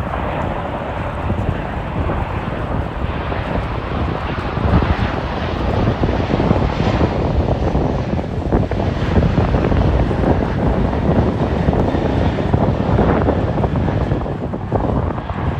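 An airliner's engines passing, swelling and then easing, with heavy storm wind buffeting the microphone throughout.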